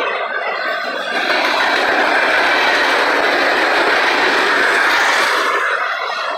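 Freight train's tank cars and covered hoppers rolling past: a steady rush of steel wheels on rail. The rush eases slightly about a second in and again near the end.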